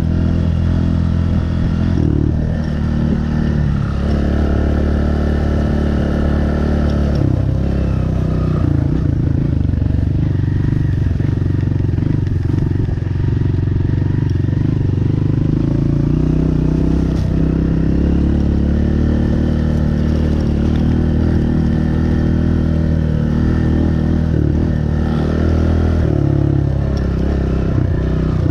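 Honda CRF125F Big Wheel's single-cylinder four-stroke engine running under way while being ridden, its engine speed rising and falling several times.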